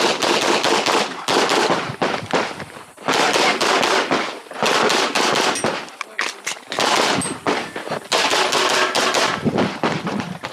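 9mm Glock 34 Gen 5 pistol fired in fast strings of shots during a timed practical-shooting stage, with brief gaps between strings.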